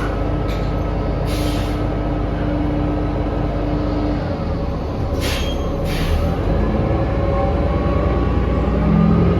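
A 2019 New Flyer XD40 transit bus heard from inside, its engine and drivetrain running loudly with steady tones that shift in pitch, and three short hisses of air. The rider finds the bus's running noise abnormally loud and strange.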